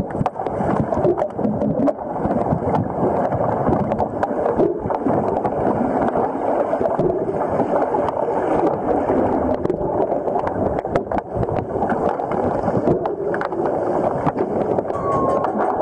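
Muffled churning and gurgling of water stirred by swimmers, heard through an underwater camera housing, with many sharp clicks and knocks throughout.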